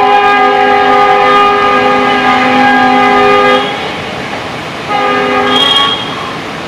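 Multi-tone air horn of a WDP 4 diesel locomotive at the head of a departing passenger train: a long blast that cuts off about three and a half seconds in, then a shorter second blast a little over a second later.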